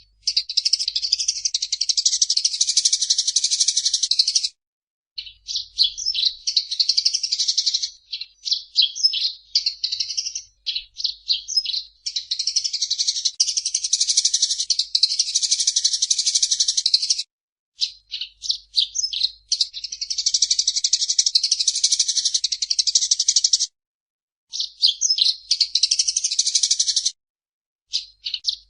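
Eurasian tree sparrow (burung gereja) chattering in fast, continuous runs of high chirps, broken by a few short pauses.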